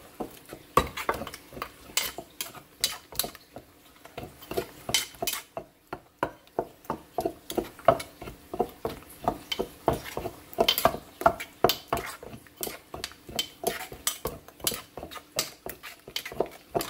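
Wooden pestle pounding steamed eggplant, chili and cilantro in a mortar: a steady run of dull knocks, about two or three a second, with a spoon in the mortar scraping and clinking as the mash is worked together.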